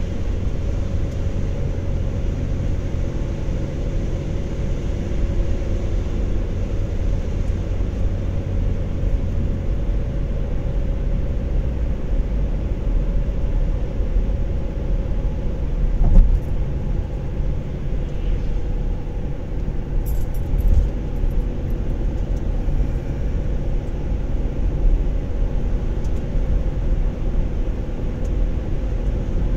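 Steady low rumble of road and engine noise inside a moving car's cabin, with one short knock about sixteen seconds in.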